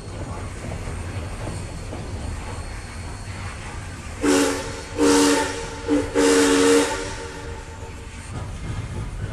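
Train running with a steady low rumble, then its whistle sounds a chord in four blasts from about four seconds in, three long and one very short, ending near seven seconds.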